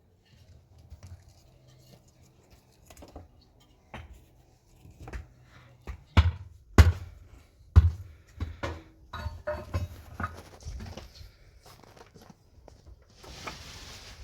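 Irregular knocks and thuds of handling work, the three loudest about six to eight seconds in, with a short rustling hiss near the end.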